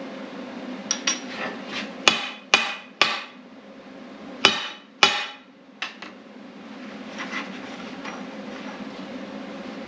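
Hammer striking steel: a few light taps, then six sharp blows that leave a metallic ring.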